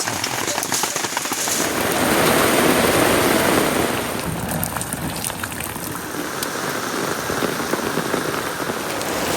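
Rain falling, a dense steady hiss with scattered drop ticks, heaviest about two to four seconds in.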